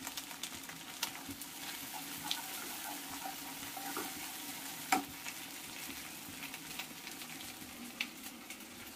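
Chopped onions and ginger-garlic paste sizzling in oil and butter in a nonstick kadai, stirred with a wooden spatula that scrapes and clicks against the pan, with a sharper tap about five seconds in.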